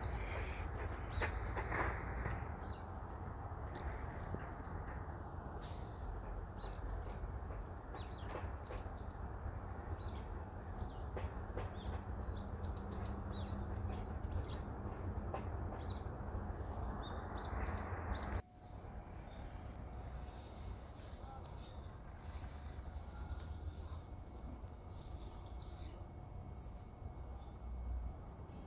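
Insects chirping in a steady, high-pitched rhythm of about two to three chirps a second, with scattered short bird chirps over a low background rumble. The sound breaks off abruptly a little past the middle and resumes at once.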